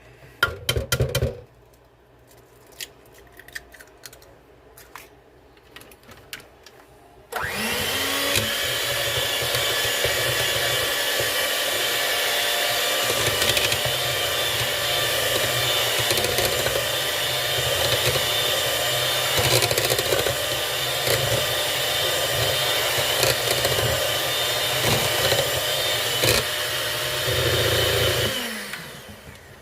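Electric mixer switched on about seven seconds in, spinning up and running steadily as it beats eggs into butter for a cake batter, then spinning down near the end. Before it starts, a few sharp knocks and clicks.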